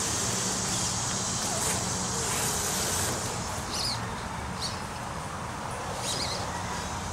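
Woodland ambience: a steady high insect buzz that fades about halfway through, a few short bird chirps in the second half, and a low steady hum underneath.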